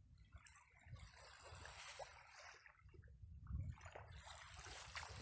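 Faint small waves lapping and trickling at a shallow shoreline, with wind rumbling on the microphone.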